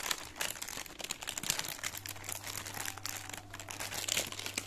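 Plastic wrapper of a Cadbury Dairy Milk chocolate bar crinkling as hands work at it, trying to tear it open without it giving way.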